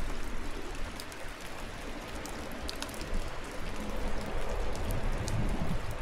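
Steady rainfall with scattered sharp ticks of single drops landing close by. A low rumble of thunder starts to build near the end.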